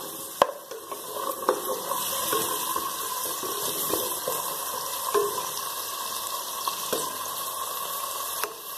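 Peeled baby potatoes sizzling steadily in hot oil in a non-stick kadai, while a wooden spatula stirs them and knocks sharply against the pan a few times.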